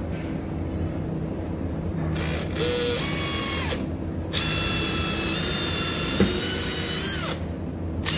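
Cordless drill-driver running in two spells, a short one and then one of about three seconds, a steady motor whine whose pitch sags near the end of the second run as it drives screws into the wooden cabinet.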